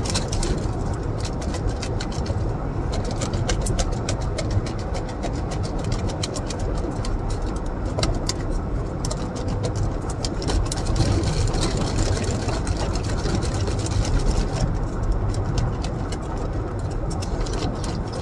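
Steady low rumble of a car idling, heard from inside the cabin, with repeated crackling and clicking from a clear plastic clamshell salad container being handled and eaten from.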